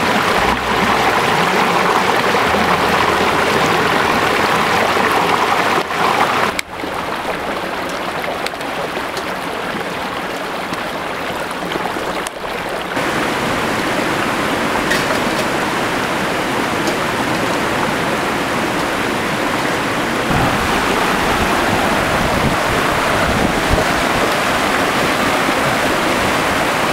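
Small rocky stream rushing over stones, a steady rush of water that briefly dips and changes character about six and a half and twelve and a half seconds in.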